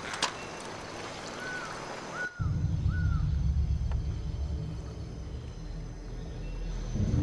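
Film soundtrack of river ambience: a steady hiss of flowing water with a sharp click near the start, and a bird calling three short times. Just over two seconds in, the hiss cuts away and a deep low rumble takes over.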